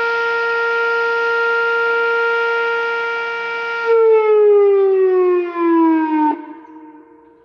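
Whelen 2805 electronic outdoor warning siren sounding the steady Alert tone for a tornado drill. A bit over halfway in, the pitch slides down as the signal ends, and it cuts off sharply, leaving only a faint lingering tone.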